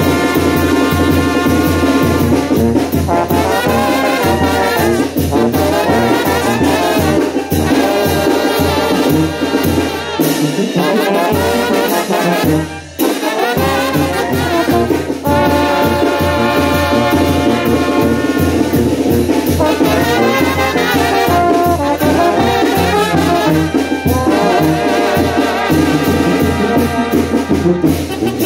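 Brass band playing with trumpets and trombones over a steady, regular beat, with a brief drop about thirteen seconds in.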